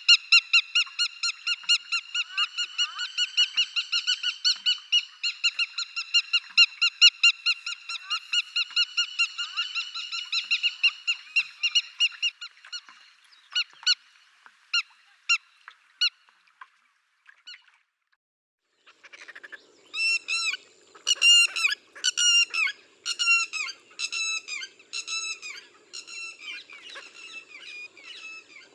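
Rainforest birds calling: a fast run of repeated honking calls, then a few separate calls and a short pause past the middle. After the pause comes a slower series of hooked, falling calls at about two a second over a faint low drone.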